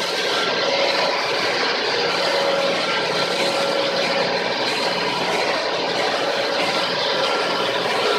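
Ship's engine room machinery running: a steady, unbroken mechanical din with a few faint steady tones humming through it.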